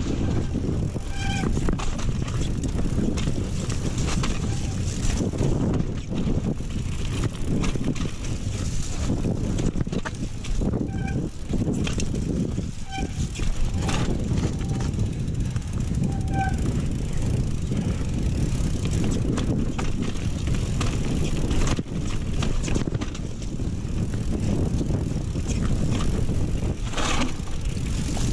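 Mountain bike riding over rough trail: a steady rumble of wind on the microphone and tyres on the ground, with constant rattling and knocks from the bike, and a few short squeaks about 1, 11, 13 and 16 seconds in.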